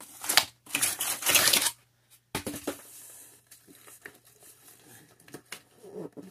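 Cardboard box and paper honeycomb packing rustling and scraping as hands dig in to pull out a heavy module. The two loudest bursts come in the first two seconds, followed by lighter rustles and small knocks.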